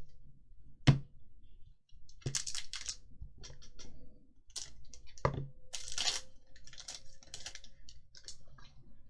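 Magic: The Gathering cards and foil booster-pack wrappers handled on a table: three sharp knocks among lighter taps, with bursts of crinkling and card rustle between them.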